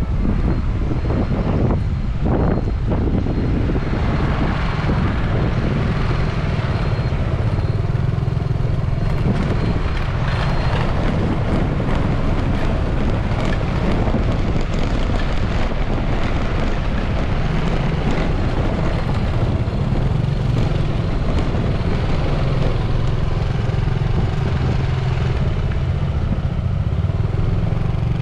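Motor scooter running at low town speed, heard from the rider's seat as a steady engine drone mixed with road and wind noise. Partway through, the tyres rattle over cobblestones.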